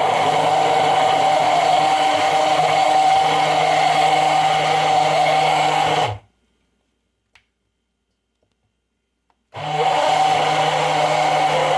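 Immersion blender running steadily as it whips aquafaba mayonnaise, cutting off about six seconds in. After a few seconds of quiet it starts up again.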